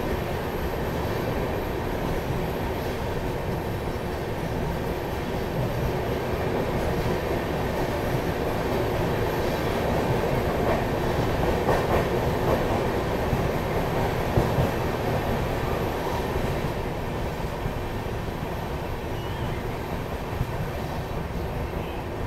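Indian express train's coach running at speed, heard from its open doorway: a steady rumble and rush of wheels on the rails. It grows louder in the middle, with a few sharp clacks over the track.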